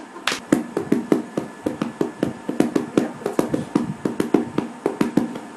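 Quick rhythmic tapping, about four strikes a second: some sharp and bright, others duller thumps.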